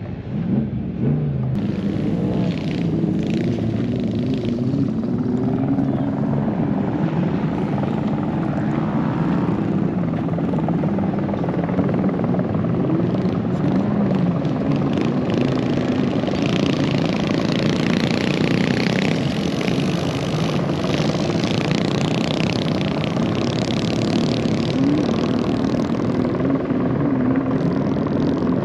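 Continuous din of off-road trucks and other vehicles' engines as they drive past, the engine pitch wavering up and down throughout.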